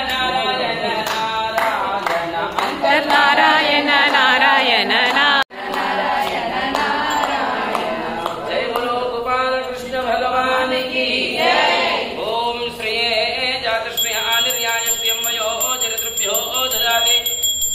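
Sanskrit Vedic mantras chanted by voices at a homa fire ritual, breaking off for an instant about five seconds in.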